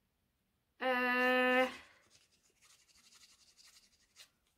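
A woman's closed-mouth "mmm" hum at one steady pitch for about a second, followed by faint scratching as a scratch card's coating is rubbed off.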